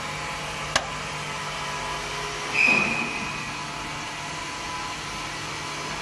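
Steady machinery hum with faint steady tones. There is a sharp click a little under a second in, and about halfway a brief louder squeak with a falling pitch.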